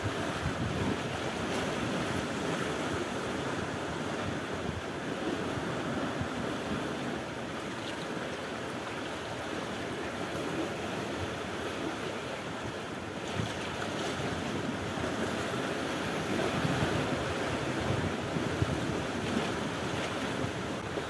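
Small sea waves washing and breaking against rocks and a post at the shoreline, a steady surf wash that swells a little in the second half, with wind buffeting the microphone.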